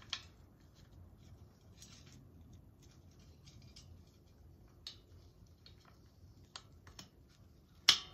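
A handful of short, sharp metal clicks and taps, spaced out, from handling the steel tree-stand frame and a wire hitch-pin clip, the loudest just before the end.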